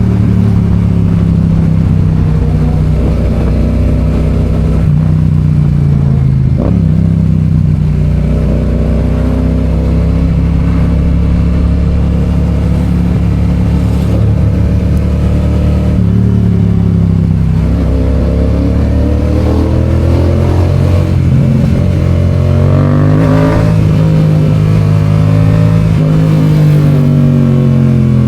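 Yamaha FZ-07's parallel-twin engine running under way, holding fairly steady revs with brief dips about a third and halfway through. In the second half the revs rise and fall a few times, then drop away near the end as it slows.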